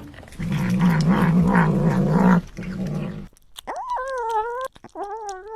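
Cat growling low and warbling as it eats, then two longer, higher-pitched wavering calls in the second half.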